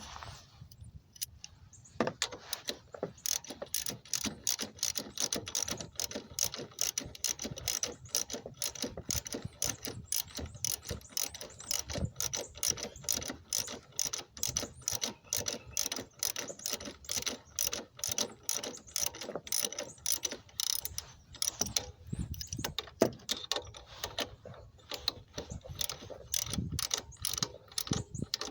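Hand ratchet wrench clicking in quick, even strokes as a bolt is turned, with short pauses near the end.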